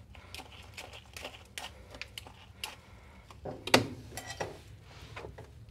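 Slicker brush dragged through a wet, shampooed dog's coat, pulling out loose undercoat: scattered soft scratchy strokes and light clicks, with one sharper knock a little before four seconds in.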